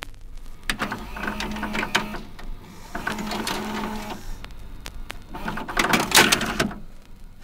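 Live hall sound through a camera microphone: the breaking battle's music from the venue speakers comes through as a clattering rhythmic beat with a low droning note, mixed with crowd noise.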